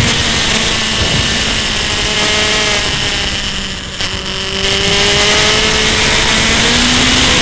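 Yamaha sport motorcycle's engine running hard at track speed under heavy wind rush on the onboard microphone. It eases off briefly about four seconds in, then pulls back up as the bike accelerates out of a corner.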